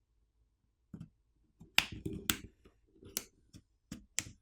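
Plastic catches of a Galaxy A07 smartphone's plastic back housing snapping loose one after another as a plastic pry tool is run along the edge: about six sharp clicks starting a second in, with faint rubbing between them.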